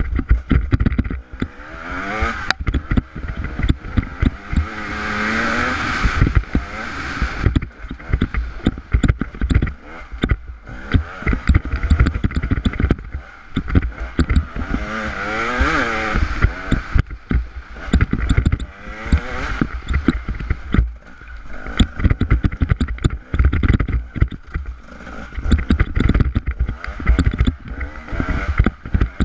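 Off-road motorcycle ridden hard over a rocky trail. The engine revs up and down, most strongly a couple of seconds in and again around the middle, over constant knocking and clatter from the rough ground and low buffeting on the microphone.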